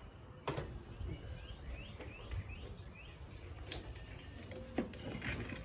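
A few knocks and clicks from handling a portable CD radio and plugging in its power cord, with a bird chirping a quick run of about six short rising notes in the middle.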